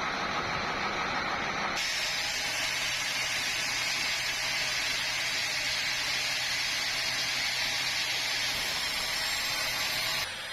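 Sawmill saw cutting through a large meranti log: a steady, loud hiss with a low machine hum. The sound changes abruptly about two seconds in and cuts off abruptly near the end.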